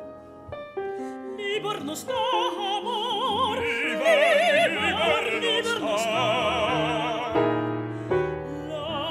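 Operatic singing with a wide vibrato over piano accompaniment. The piano plays alone at first, and the voice comes in about a second and a half in.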